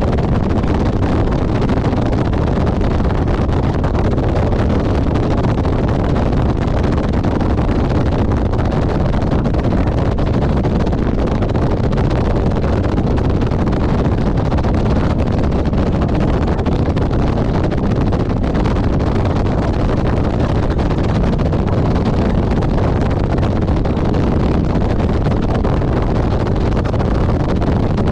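Motorcycle riding at a steady cruising speed: engine drone and road noise under heavy wind rush on the microphone, steady throughout with no change in speed.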